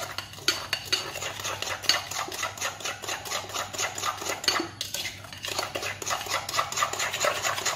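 Hand-beating egg, sugar and melted butter in a glass mixing bowl: a utensil clicks rapidly and steadily against the glass, several strokes a second, with a brief pause about five seconds in.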